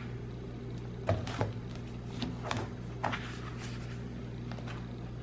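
Soft taps and rustles of a plastic-spiral-bound book being opened and its paper pages turned: a handful of brief, light sounds spread through. A steady low hum runs underneath.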